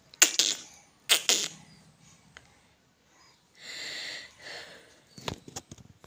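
Two sharp, breathy bursts close to the microphone, the first right at the start and the second about a second later, like sniffs or huffs of breath. A softer hiss of breath follows about halfway through, and a few light clicks come near the end.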